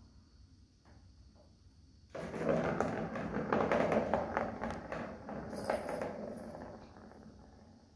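A cat scrambling through a fabric play tunnel: the tunnel rustles and scrapes with many small clicks. The burst starts suddenly about two seconds in and dies away over the last couple of seconds.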